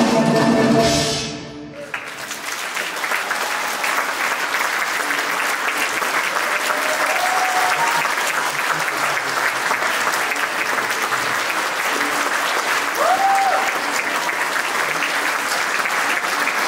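A Kazakh folk-instrument ensemble (dombras, bowed kobyzes, drum kit) ends on a final chord that dies away, then audience applause starts about two seconds in and carries on steadily. Two brief high calls rise above the clapping.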